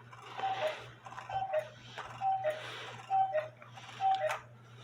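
Cuckoo clock's bellows-and-pipe cuckoo calling, a falling two-note "cu-ckoo" repeated about once a second, five times, with the breathy hiss of the bellows around each call. A sharp click comes near the end.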